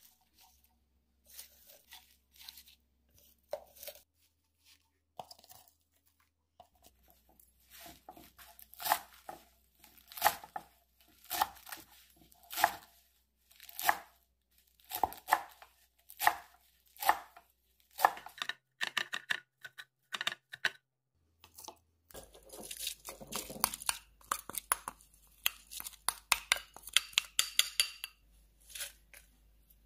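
Kitchen knife chopping fresh plantain leaves on a wooden board. Soft handling sounds come first, then sharp single strokes about one a second. In the last few seconds there is a denser, quicker patter of small ticks.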